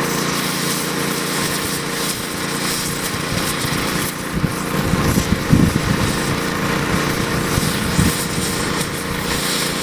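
Small gasoline engine of crack repair equipment running steadily with a dense rushing noise. Uneven low bumps come in about halfway through.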